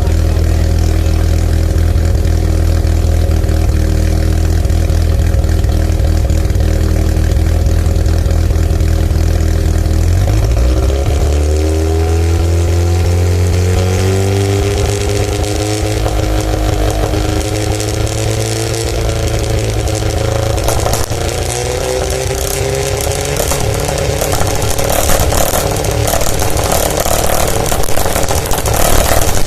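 Turbocharged 13B rotary engine of a Mazda RX-7 SA22C, running through a cat-deleted exhaust. It idles steadily at first; about ten seconds in, the engine speed rises and is held at a raised, slowly climbing rpm. Near the end it runs unevenly with sharp pops, the misfiring that the video's title names.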